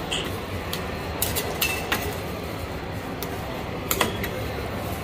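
Two steel spatulas chopping and scraping ice cream on a frozen steel cold plate: irregular sharp clacks of metal on metal, one with a short ringing clink.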